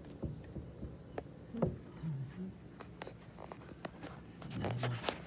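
Scattered small clicks, taps and scrapes from a phone being handled and moved about indoors, with a cluster of sharper clicks near the end.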